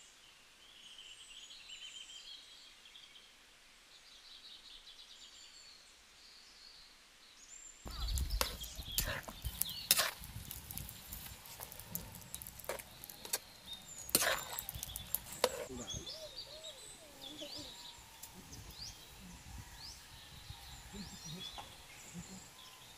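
Small birds chirping, high and thin. About a third of the way in, a metal ladle starts knocking and scraping in a steel cooking pot over a low rumble for several seconds, then the birds go on chirping.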